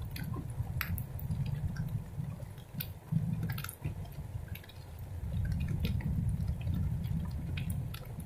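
Heavy rainstorm close up: raindrops and drips ticking sharply and irregularly near the microphone, over a low rumble that swells and fades and is loudest in the second half.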